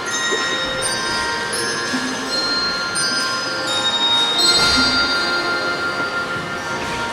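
Handbell choir playing: many bells struck in turn, each ringing on and overlapping into sustained chords, with a louder, fuller chord about four and a half seconds in.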